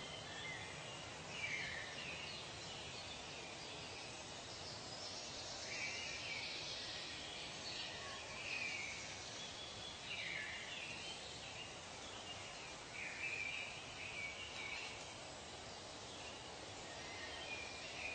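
Natural outdoor ambience: a steady soft hiss with short chirping bird calls recurring every couple of seconds.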